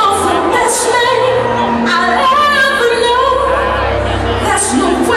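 A recorded song: a woman sings a solo vocal line over a backing track with a low bass.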